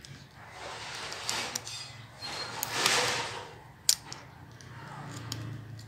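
Hand scissors pruning a bonsai: rustling as the foliage and shoots are handled, and a sharp snip of the blades about four seconds in, with a couple of lighter clicks earlier.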